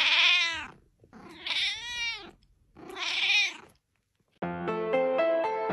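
A cat meowing three times in long, drawn-out calls that rise and fall in pitch and sound like a sheep bleating. Music starts near the end.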